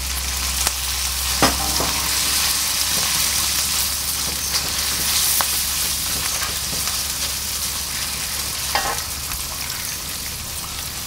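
Minced pork frying in a wok with vinegar just added, sizzling steadily while a silicone spatula stirs it, with a few light knocks of the spatula against the pan.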